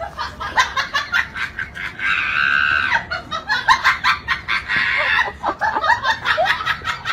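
Chickens clucking in quick, repeated calls, with a longer squawk about two seconds in and another around five seconds.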